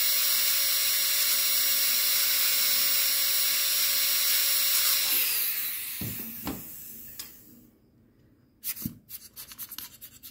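Contra-angle dental handpiece with an inverted cone bur whining steadily as it cuts a cavity into a plastic typodont molar. About five seconds in the whine drops slightly in pitch and winds down, fading out. Near the end come light scratching clicks from a metal probe on the plastic tooth.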